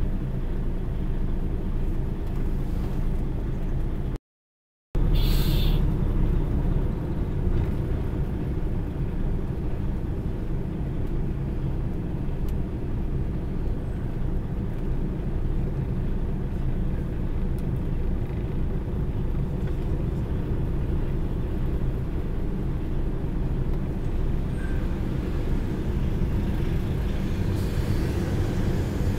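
Steady low engine drone heard from inside a vehicle's cab as it rolls slowly behind a truck. The audio drops out completely for under a second about four seconds in, followed by a short hiss.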